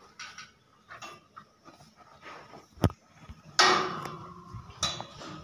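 Steel feed barrier clinking and knocking as a calf feeds with its head through it: scattered light clicks, a sharp knock a little before three seconds in, and a louder clank with a brief ring a little later.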